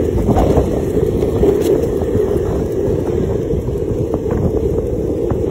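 Wind buffeting a handheld phone's microphone as it moves along behind a dog on a leash: a steady low rumble.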